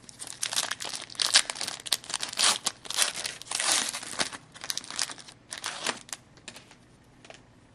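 Hockey card pack wrapper being torn open and crinkled in the hands: dense, irregular crackling that dies away about six seconds in, leaving a few faint ticks.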